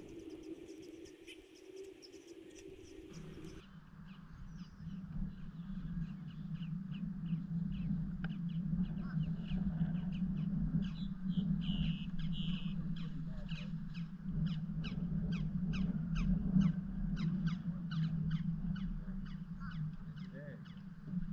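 Fishing reel clicking in a quick, regular series as a hooked bass is reeled in, the clicks coming faster after about ten seconds, over a steady low hum that starts about three seconds in.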